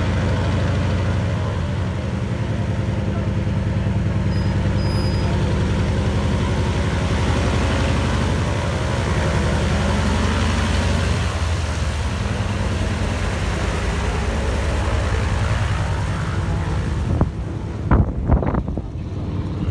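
An aircraft engine running steadily, loud and even. About 17 seconds in it gives way to gusty wind buffeting the microphone.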